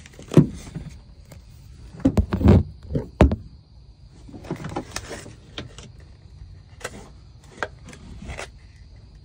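Clicks, knocks and rustles of a heavy 30-amp power cord plug being handled and a flip-up outlet cover being lifted on a pickup's built-in power outlet panel. The loudest knocks come in a cluster about two to three seconds in, with lighter clicks after.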